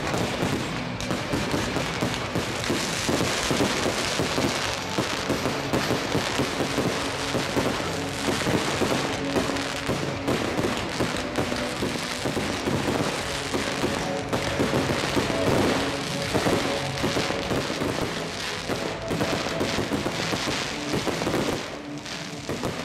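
Fireworks going off in a dense, continuous run of crackles and bangs, with music playing under them.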